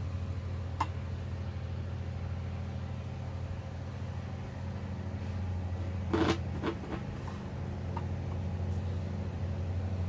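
A steady low mechanical hum, like a running engine or motor, throughout. A small click about a second in, and a brief clatter of hard knocks about six seconds in.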